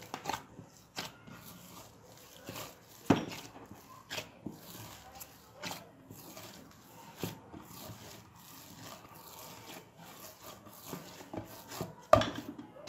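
Hands kneading a soft bread dough in a glazed clay bowl: irregular soft thumps and squelches as the dough is pushed, folded and pressed down, with a louder thump about three seconds in and another near the end.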